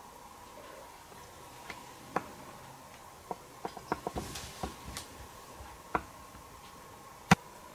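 Scattered light clicks and taps of a small china cup being handled and lowered after drinking, with one sharper click near the end.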